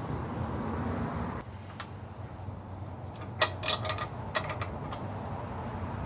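A quick cluster of light metallic clinks and clicks, small metal parts knocking together, about three and a half seconds in, over a steady low background hum.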